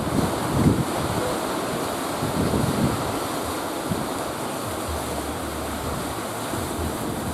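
Rough sea surf breaking and washing steadily, with wind buffeting the microphone in gusts, strongest near the start.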